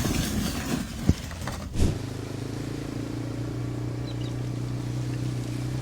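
A burst of noise and two sharp knocks in the first two seconds, then a vehicle engine running steadily at a low, even idle.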